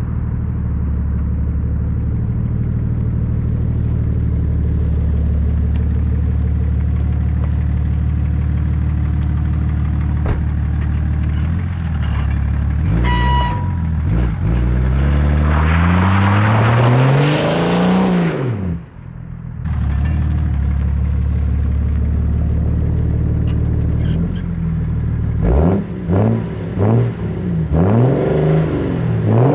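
BMW 730d E38's straight-piped 3.0 inline-six diesel idling steadily, then revved once up high and let fall back to idle. Near the end it is blipped in a quick series of short revs.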